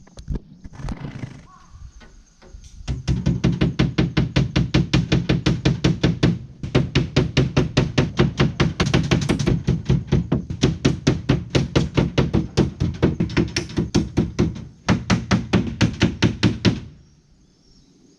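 Rapid, regular hammering knocks, about six or seven a second, in three long runs with short breaks, stopping near the end.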